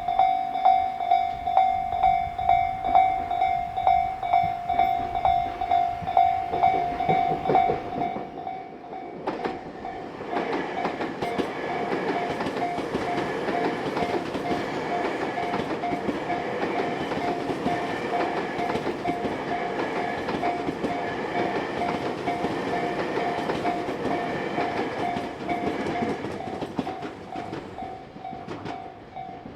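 Railway level-crossing warning bell ringing in a steady kan-kan rhythm, about two strokes a second. From about ten seconds in, a Tobu Isesaki Line train runs through the crossing with a rattling rumble under the bell, fading away near the end.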